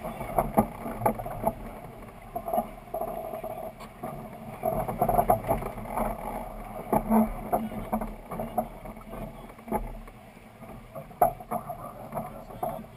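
Dufour 45e sailing yacht under way with its crew working on deck: a steady rush of wind and water broken by scattered clicks and knocks from lines and deck gear, sharpest about a second in, around seven seconds and again near eleven seconds.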